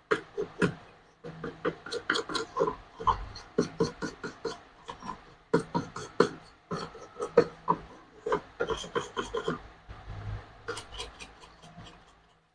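A stiff brush scrubbing a switch-mode power-supply circuit board clean: quick, uneven scratchy strokes of bristles over the components, several a second, with a few brief pauses.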